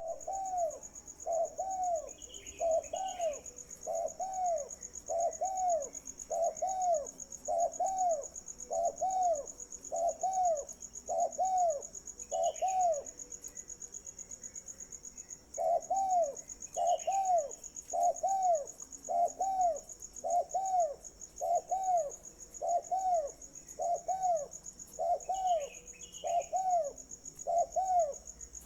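Bird-market sounds: a bird gives a low, arched call over and over, about once a second, breaking off for a couple of seconds midway. Behind it runs a steady high trill of crickets, with a few brief higher bird chirps now and then.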